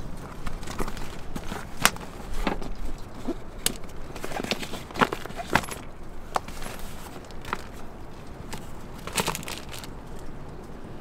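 Hands handling a fabric wet-wipe and tissue case: rustling with scattered light clicks and taps as a wipe is pulled out and the case is turned over and opened.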